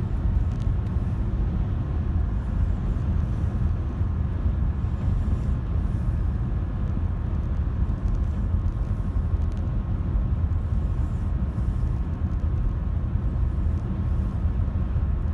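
Steady low rumble of a car driving, heard from inside the cabin: tyre and engine noise on the road, with no change in pace.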